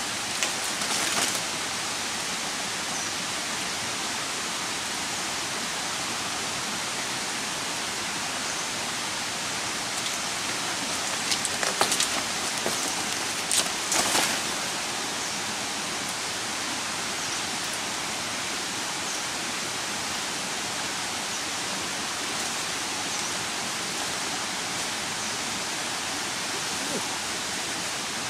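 A steady, even hiss with no pitch to it. Short crackles of leaves and stems being handled come about a second in and again around twelve and fourteen seconds in.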